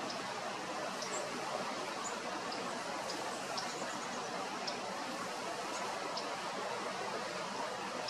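Steady background hiss with faint, short, high chip calls of small birds scattered through it.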